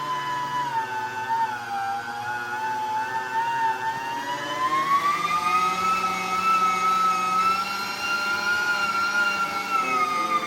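Electric meat grinder running as it grinds meat, its motor giving a steady whine. The pitch sags about two seconds in, climbs and holds higher through the middle, and dips again near the end.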